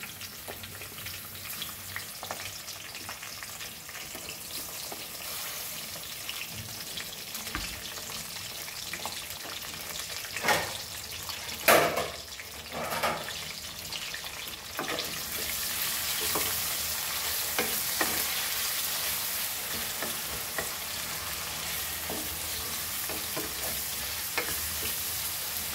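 Curry leaves sizzling in hot oil in a kadai. About ten seconds in, chopped onion is tipped into the pan with three loud clatters, and the frying sizzle then gets louder. Near the end, a wooden spatula stirs and scrapes the onion around the pan.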